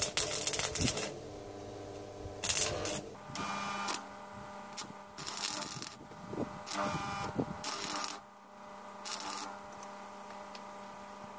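Intermittent workshop clatter and short bursts of scraping noise from hand work on the parts of a homemade rice flour mill, with a faint steady hum underneath from about three seconds in.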